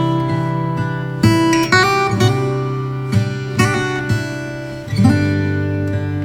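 Music played on a plucked string instrument: chords struck about once a second, with notes ringing on between strokes.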